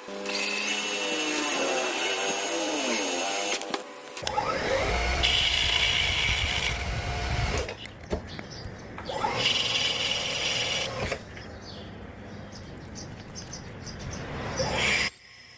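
Power tool motors running in several short stretches that change abruptly, with a whine that slides up and down in pitch in the first few seconds.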